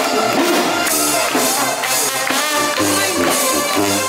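Brass band playing an upbeat tune: a sousaphone bass line and horns over drums and cymbals keeping a steady beat.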